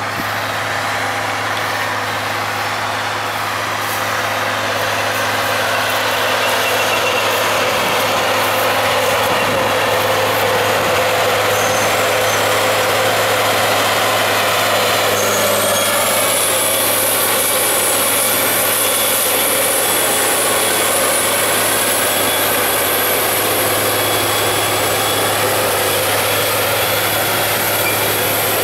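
CAT Challenger MT865C tracked tractor's Caterpillar C18 diesel working steadily under load, pulling a Väderstad TopDown 900 cultivator whose discs and tines cut through stubble and soil. It grows louder as the rig draws near, and a high whine comes in about halfway.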